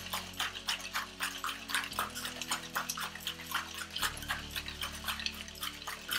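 Ice rattling and knocking inside a cocktail shaker shaken hard by hand, about five knocks a second, chilling and breaking down the drink.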